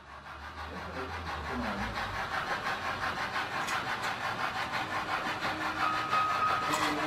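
Steam locomotive chuffing in an even, fast rhythm of about five beats a second, fading in and growing louder over the first couple of seconds. A thin, steady high tone comes in near the end.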